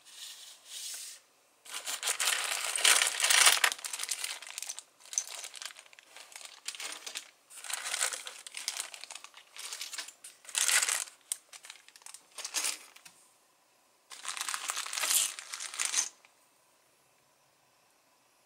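Clear plastic bags full of LEGO bricks crinkling as they are picked up and handled, in irregular bursts, the loudest about two to four seconds in.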